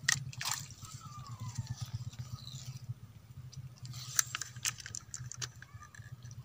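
Sharp clicks and rustles from handling a fishing float and line, loudest about four seconds in, over a steady low hum.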